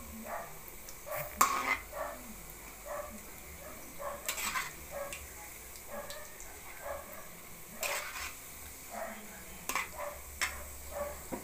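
Squid balls deep-frying in hot oil in a metal wok, sizzling, while a plastic slotted spatula stirs them with short scrapes and taps against the pan every second or so.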